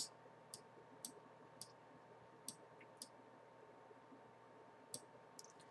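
Faint computer mouse clicks: several single, separate clicks spaced irregularly over near-silent room tone.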